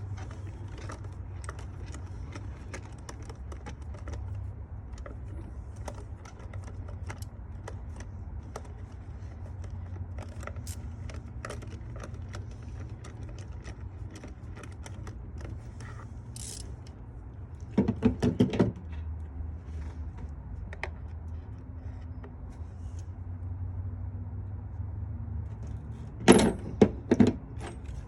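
Hand tools clinking and clicking on metal while spark plugs are being changed, scattered light ticks throughout with two louder runs of rapid clicks, one about two-thirds of the way in and one near the end, over a steady low hum.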